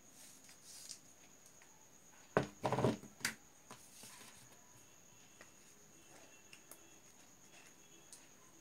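Scissors snipping a piece off a roll of tape, then a short clatter of sharp knocks about two and a half seconds in as the scissors and roll are put down on the table, followed by faint handling of the small tape piece.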